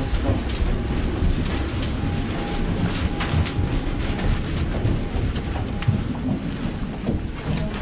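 Steady low rumbling background noise, with a faint hum and a few short knocks.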